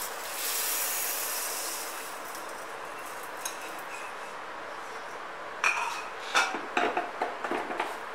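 Roasted pearl millet grains pouring off a steel plate into a stainless-steel mixer-grinder jar, a hissing rush mostly in the first two seconds. Later comes a run of metal clinks and knocks as the steel jar is handled and set onto the mixer base.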